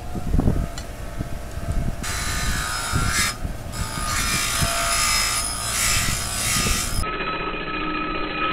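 Bench grinder wheel grinding a steel mower driveshaft part, starting about two seconds in as the metal is pressed to the wheel, with a short break a second later. Near the end the sound turns duller, with a few steady tones.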